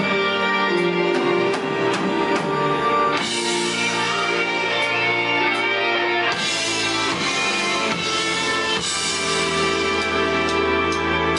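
Rock band playing live: electric guitars holding sustained notes and chords, with drums and cymbals coming in about three seconds in, no vocals yet.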